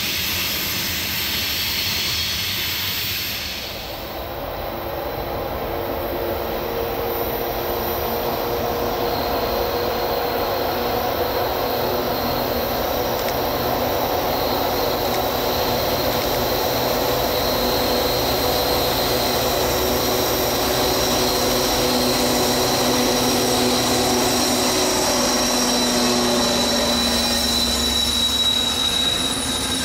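BNSF diesel-electric locomotives heading a loaded coal train, approaching and then passing close: a steady engine hum with a high whine over it, growing louder as the units draw near. The first few seconds are a steady hiss from a receding freight train's cars.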